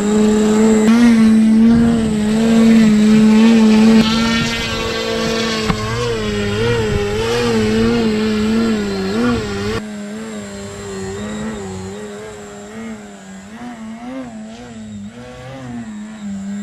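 Radio-controlled 3D aerobatic plane's motor and propeller running as a strong whine whose pitch wavers up and down again and again as the throttle is worked. The sound gets somewhat quieter after about ten seconds.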